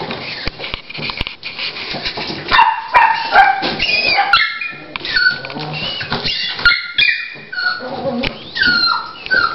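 Blanket rustling as the dog shifts. Then, from about two and a half seconds in, a run of short, high-pitched dog whimpers, most falling in pitch, during whelping.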